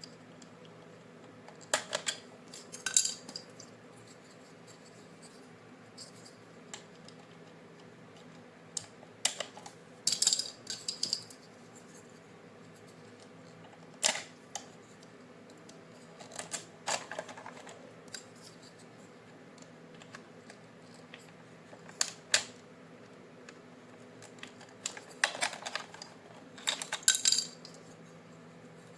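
Irregular clicks, taps and short rustles of hands handling toy packaging, a dozen or so scattered sounds over a steady faint hum.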